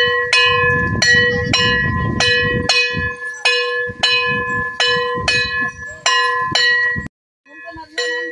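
Brass temple bell rung over and over, about two strikes a second, each stroke ringing on at the same pitch, with voices murmuring beneath. The ringing breaks off for a moment near the end, then resumes more faintly.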